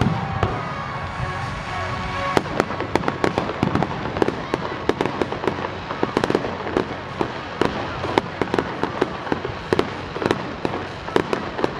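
Fireworks display going off: a rapid barrage of sharp bangs and crackles, several reports a second, growing denser after about two seconds.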